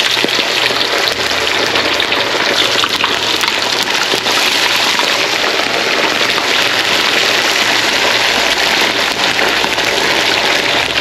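Breaded sand dab pieces frying in hot oil in a wok, a steady crackling sizzle.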